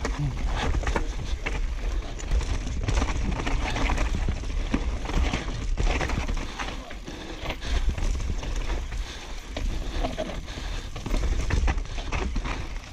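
Mountain bike descending a rough dirt forest trail, heard from a camera riding on the bike: knobby tyres on dirt and roots with frequent clatters and rattles from the bike, over a heavy rumble of wind on the microphone.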